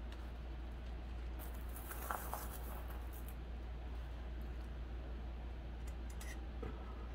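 Thin craft wire rustling and scraping as it is handled and twisted by hand on a wire hoop. There is a short spell of crackly scratching about two seconds in and a few light ticks near the end, over a steady low hum.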